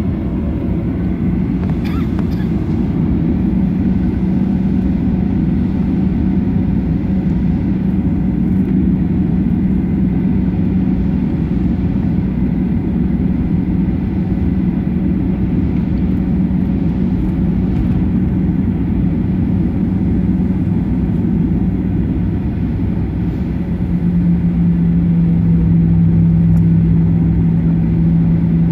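Boeing 737-800's CFM56 turbofan engines running, heard inside the cabin while taxiing: a steady low hum with one clear tone. About 24 seconds in, the hum drops slightly in pitch and grows a little louder.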